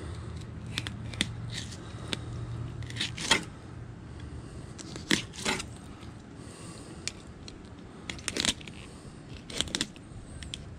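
Fillet knife cutting a golden tilefish fillet away from the backbone, with irregular short scrapes and clicks as the blade rides over the bones.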